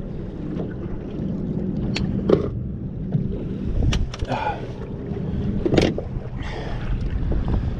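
Wind buffeting the microphone over moving shallow water, with a steady low rumble and a few sharp knocks or splashes.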